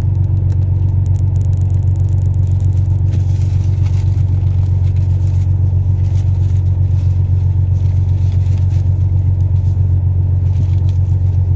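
An electric fan running close to the microphone, a loud, steady, low hum. Faint clicks sit over it during the first few seconds.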